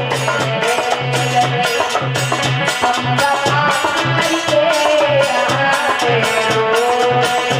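Instrumental interlude of Indian folk devotional music: a wavering melody line over a steady hand-drum beat and regular shaken percussion.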